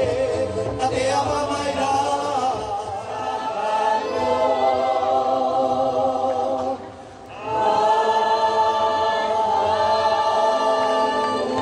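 A group of voices singing long held notes in harmony. They break off briefly about seven seconds in, then come back in full.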